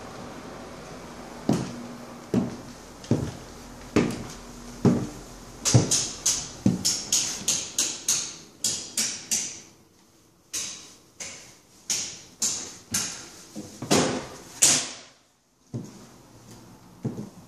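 Footsteps of someone walking across bare floors in hard-soled shoes, about two steps a second. The first few land lower with a slight ring, and from about six seconds in they turn to sharper clicks.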